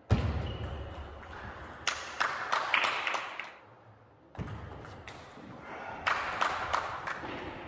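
Table tennis being played: the plastic ball clicks sharply off the rackets and the table in quick runs of hits, with a brief lull near the middle, echoing in a large sports hall.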